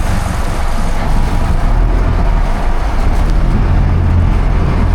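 Sportfishing boat's engine running steadily under wind and water noise.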